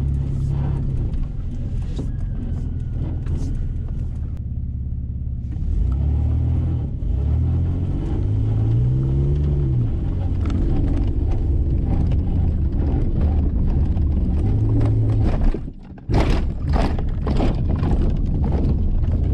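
Dodge Dakota pickup heard from inside its cab: the engine runs and accelerates toward a jump ramp, its pitch rising and falling a few times. About fifteen seconds in comes a sharp bang and a brief dip, then a run of heavy thumps and rattles as the truck lands from the jump.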